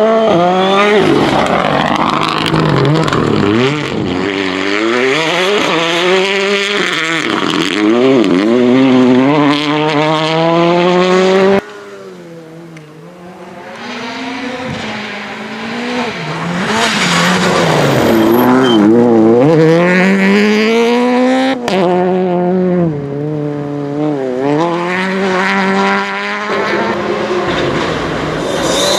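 Rally cars driven flat out on a gravel stage, engines revving hard and dropping back through gear changes as each car passes. The sound cuts abruptly to a quieter, distant car about twelve seconds in, which builds to another full-throttle pass, and cuts again about twenty-two seconds in.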